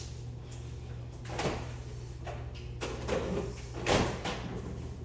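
A few short scraping, rustling handling noises, the loudest about four seconds in, over a steady low hum.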